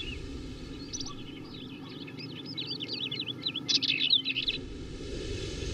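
Small birds chirping: a rapid run of high notes that swing quickly up and down in pitch, starting about a second in and stopping a little past the middle, over a steady low outdoor background.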